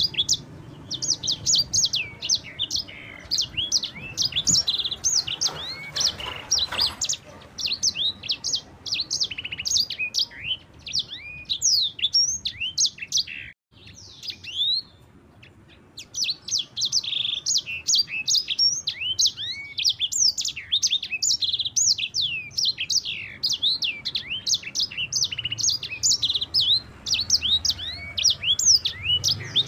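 Sanger (yellow-fronted canary) singing a fast, continuous run of high chirps and rolling trills, with a pause of about two seconds near the middle.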